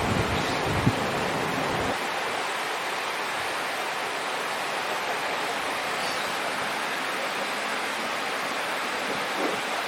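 Steady rushing of running water, with wind buffeting the microphone in the first two seconds.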